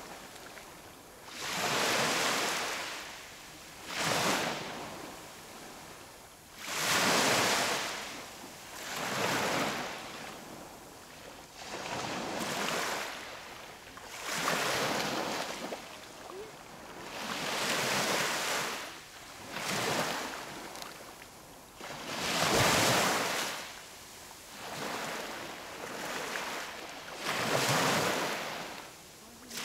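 Rushing surf noise of waves washing in, each one swelling and fading, about every two to three seconds.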